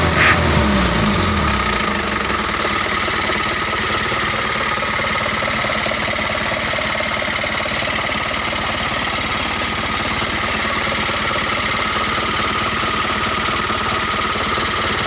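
2001 Mitsubishi Colt Diesel truck's diesel engine dropping back from a rev in the first couple of seconds, then idling steadily.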